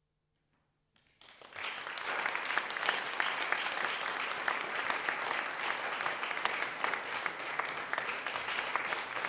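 Near silence for about a second, then an audience breaks into applause, quickly building to steady clapping.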